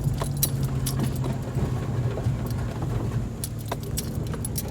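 Chevrolet Equinox driven over a rough dirt track, heard from inside the cabin: a steady low engine and road hum, with frequent clinks and rattles as the SUV bumps along.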